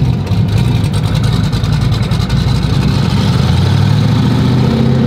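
Twin-turbo 1969 Camaro's engine running at low speed, heard from inside the cabin, a steady low drone that evens out in the second half.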